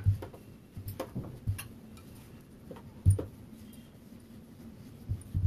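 Wooden rolling pin rolling dough on a stone rolling board, with a few irregular knocks as the pin is set down and pressed.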